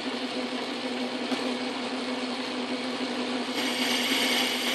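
Montgomery Wards Logan metal lathe running under power with a steady hum, taking a boring-bar pass to open up the bore of a steel sleeve. About three and a half seconds in, a brighter, higher hiss joins the hum.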